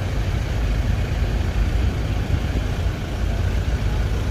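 Ferry's engines rumbling steadily, heard from the open deck, with a steady hiss over the low rumble.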